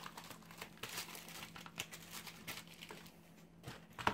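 Plastic shipping bag crinkling as it is pulled and torn open by hand and a small product box is drawn out, with many small irregular crackles that thin out toward the end. A single light knock near the end as the box is set down on a wooden desk.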